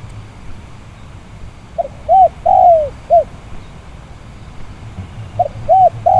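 Spotted dove cooing: a phrase of four coos, the third drawn out longest. The same phrase starts again about five and a half seconds in and is cut off at the end.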